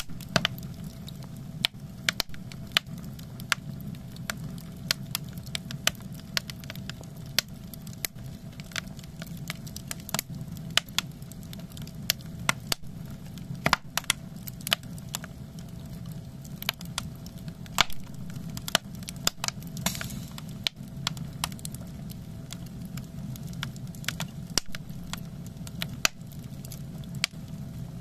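Split logs burning in the firebox of a Chofu wood-and-kerosene bath boiler: irregular sharp crackles and pops over a steady low rumble.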